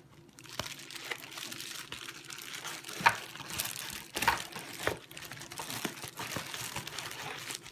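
Packaging handled as a camera body is unboxed: irregular crinkling and rustling with scattered sharp clicks, loudest about three seconds in.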